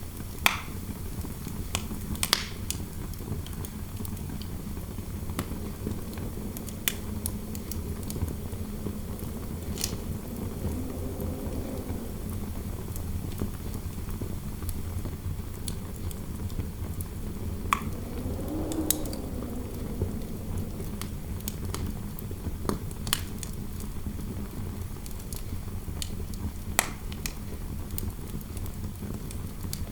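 Wood fire crackling, with sharp pops every few seconds over a steady low wind noise. The wind howls softly, rising and falling in pitch twice.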